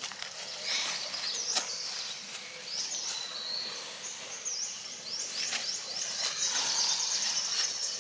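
Outdoor ambience: short high bird chirps repeating every second or so over a steady insect hiss, with a fast chirping trill from about six seconds in and a few sharp clicks or rustles.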